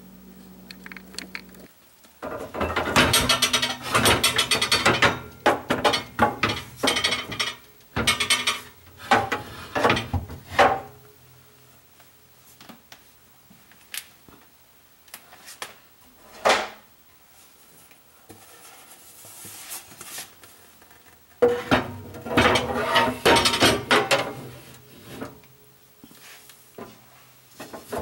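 Kitchen dishes, wooden boards and cabinet fittings being handled: clattering and knocking in two long bursts, with a few single knocks between.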